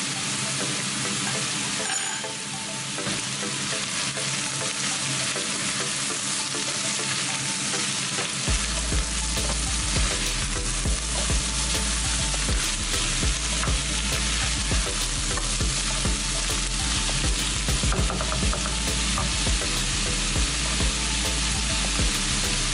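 Diced carrots and onions sizzling steadily in hot oil in a stainless steel pot, stirred with a wooden spoon, with small scrapes and knocks of the spoon through the sizzle.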